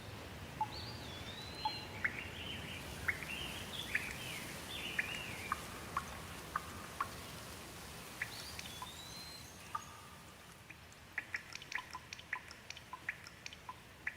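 Wood fire crackling with sharp pops over a soft steady hiss of rain, the pops coming thick and fast near the end. A bird calls in runs of rising and falling whistles in the first few seconds and again around eight seconds in.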